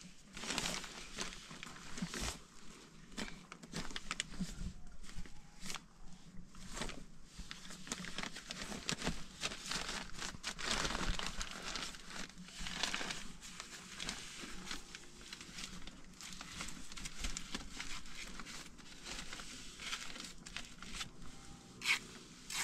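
Irregular rustling and crinkling handling noises with many scattered short clicks.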